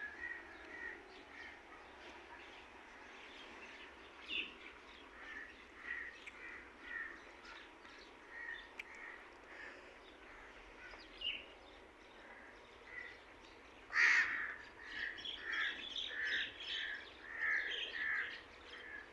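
Birds calling outdoors, short harsh calls repeating about once a second, with a loud call about fourteen seconds in followed by a quicker run of calls.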